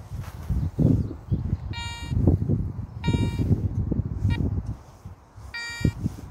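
Metal detector giving four short buzzing beeps about a second apart, signalling metal in the clod of soil being broken open by gloved hands. Scuffing and crumbling handling noise lies underneath and is louder than the beeps.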